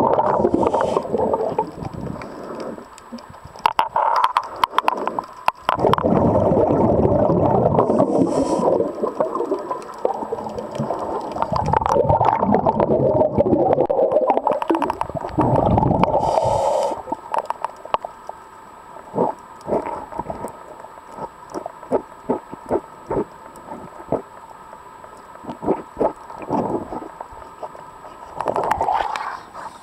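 Muffled underwater rumbling and gurgling of water moving against a camera held below the surface, loud and continuous for about the first half. After that come scattered clicks and knocks from handling the camera, with a short swell of water noise near the end.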